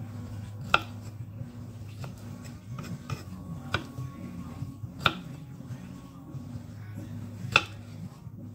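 A kitchen knife slicing okra on a wooden cutting board. The blade knocks the board in sharp, irregular strokes; four are louder than the rest, the loudest near the end.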